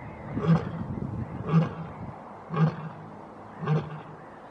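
Lioness roaring in a series of short, evenly spaced calls, about one a second, four in all.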